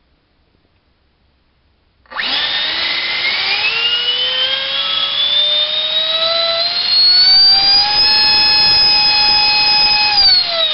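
GoolRC 2958 4200kv inrunner motor driving a 65mm electric ducted fan, run up from rest about two seconds in. Its whine rises steadily in pitch for about six seconds under a rush of air, holds at top speed for a couple of seconds while drawing over 70 amps from a 4-cell pack, then winds down near the end.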